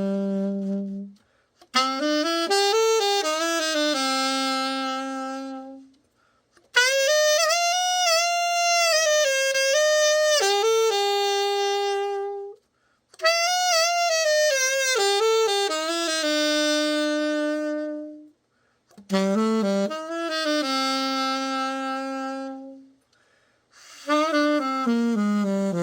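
Alto saxophone, a King 613, played solo in melodic phrases of four to six seconds with short pauses for breath between them, as a play test of the repaired horn.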